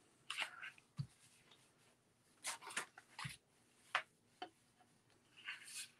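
Printed cardstock card pieces being handled and laid down on a craft mat: a few short, soft paper rustles and light ticks with quiet gaps between, and one soft thump about a second in.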